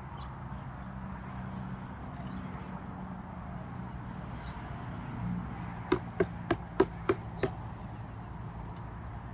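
Steady chirring of insects such as crickets over a low background hum. About six seconds in, six sharp knocks follow one another quickly, roughly three a second.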